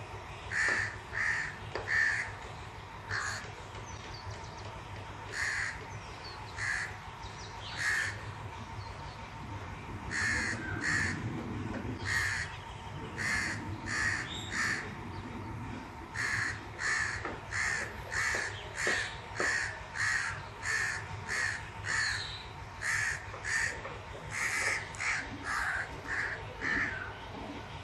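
A crow cawing over and over: short harsh caws, about one to two a second, often in runs of two or three.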